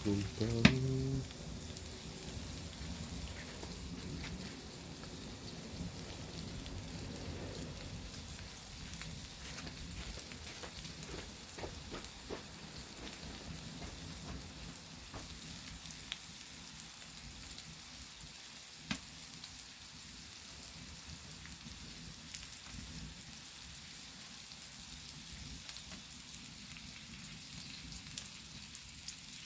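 Meat sizzling steadily on a flat stone heated over a wood fire, with a few sharp crackles now and then.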